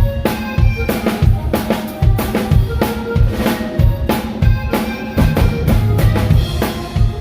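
Drum kit played in a steady groove: kick drum and snare strokes with cymbals ringing over them.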